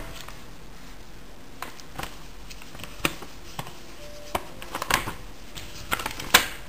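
Paper pages of an old 1911 dictionary being leafed through by hand: a string of short, crisp rustles and flicks, the loudest near the end.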